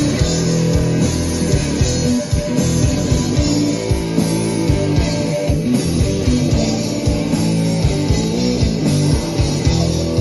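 A rock band playing live: guitars over a bass line and regular drum hits, with no pause.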